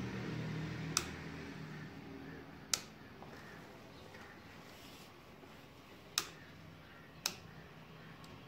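Four sharp clicks from a motorcycle's left handlebar switch gear being operated, unevenly spaced. A low hum fades away during the first second or two.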